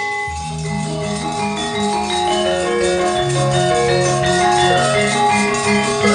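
Javanese gamelan playing a steady melody: metallophones ring out long held notes over lower sustained tones.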